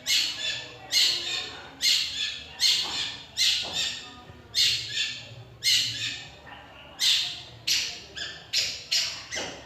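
Long-tailed shrike (cendet) giving a series of about a dozen short, harsh calls, roughly one every three-quarters of a second, coming faster near the end.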